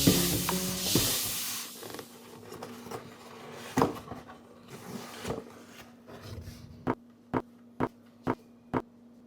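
Background music fading out, then scattered sharp clicks and knocks. Near the end come five evenly spaced sharp clicks, about two a second, over a faint steady hum.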